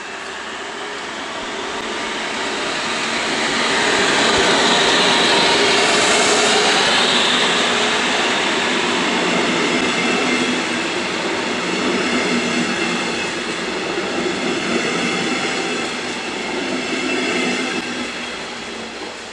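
DB class 218 diesel-hydraulic locomotive hauling a train of double-deck coaches past at speed. The diesel's sound swells as the locomotive approaches and passes about five seconds in, then gives way to the steady rush of the coaches rolling along the rails, with a last swell as the rear cab car goes by near the end.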